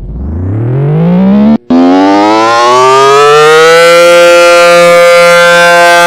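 Federal Signal SD10 warning siren winding up on its attack signal: the tone rises steadily over about four seconds, then holds at a steady high pitch. There is a brief cut-out about one and a half seconds in.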